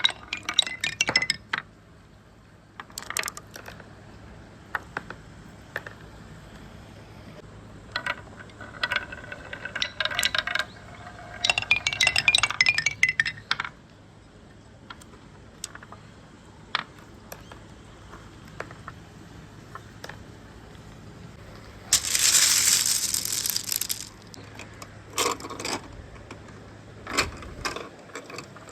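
Marbles clicking and clattering along a marble run, with quick runs of chiming notes near the start and again later. About two-thirds of the way through comes a loud rushing noise lasting a couple of seconds, then more scattered clicks.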